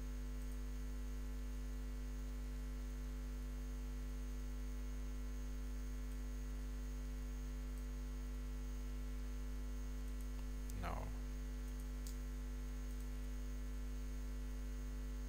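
Steady electrical mains hum picked up by the recording chain, with only a short faint noise about eleven seconds in.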